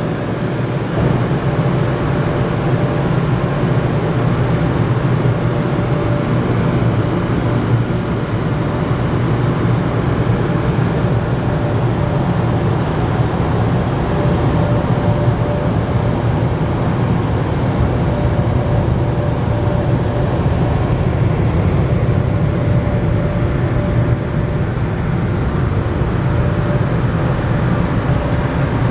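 Karcher Opti Wash 8000 gantry dryer's blowers running, a loud steady rush of air with a faint steady whine over it, heard from inside the car as the dryer passes over.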